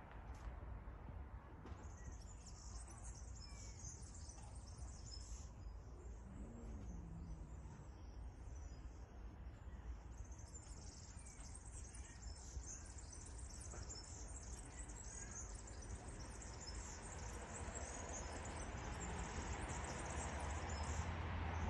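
Outdoor ambience: a steady chorus of high, fine chirping starts about two seconds in and runs almost to the end, over a low rumble.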